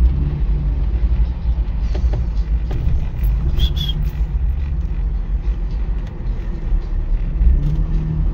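Steady low rumble of a vehicle rolling slowly in traffic, heard from inside the cabin, with a short high tone about three and a half seconds in.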